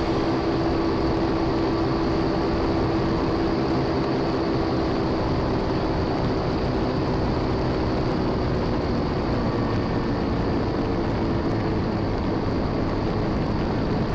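Steady engine drone and wind rush of a small aircraft in flight, heard from on board, with one faint steady tone in the drone.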